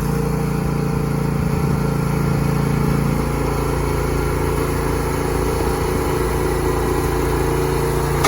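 An engine idling steadily, with a slight change in its tone about three seconds in.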